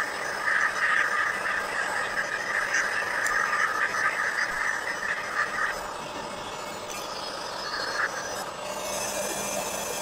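Electric heat gun running steadily, blowing hot air onto the end of an oak barrel. The blowing eases a little about halfway through.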